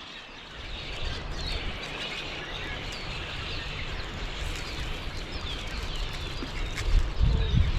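Small birds chirping and singing, over a low, uneven rumbling noise that grows loudest near the end.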